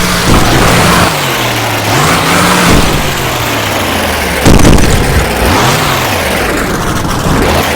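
Monster truck's supercharged V8 revving up and falling back several times, with a loud thump about four and a half seconds in.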